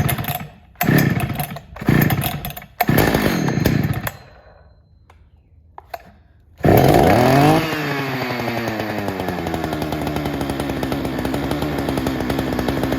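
1983 Husqvarna 61 two-stroke chainsaw being pull-started from cold: four quick pulls on the starter rope, a pause, then the engine catches about six and a half seconds in. It revs high, drops within a second and settles into a steady idle.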